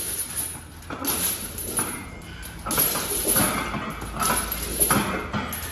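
A man breathing hard and grunting in bursts about a second apart as he presses a heavy barbell on a bench, with sharp metallic clinks from the bar and plates.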